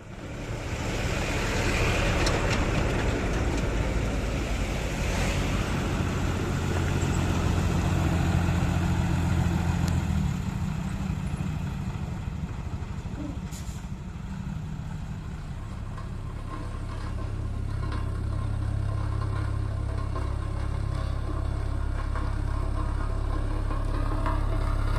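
An engine running with a steady low drone. Its pitch and loudness shift about ten seconds in and again around fifteen seconds in.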